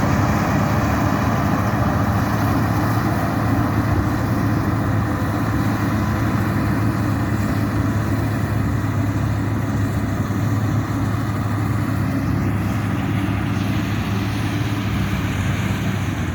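Combine harvester's diesel engine running steadily, a low, even drone with little change.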